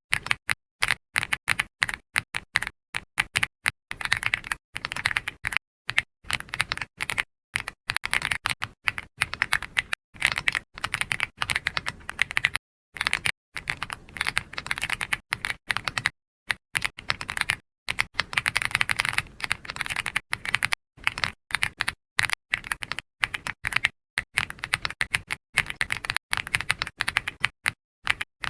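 Computer keyboard being typed on: runs of quick keystroke clicks broken by brief pauses.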